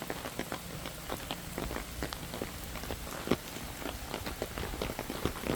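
Rain falling, with many irregular drops tapping on a near surface over a steady hiss. One tap about a third of the way in is louder than the rest.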